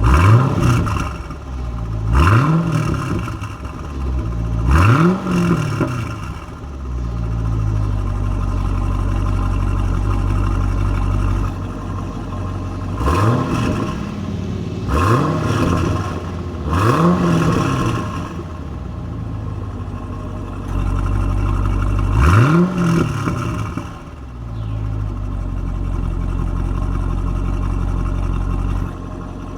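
A 2016 SS's V8 exhaust idling with a deep, steady burble, blipped seven times in light revs. Each rev rises quickly and falls back to idle: three near the start, three in a row in the middle and one later, with long stretches of plain idle in between.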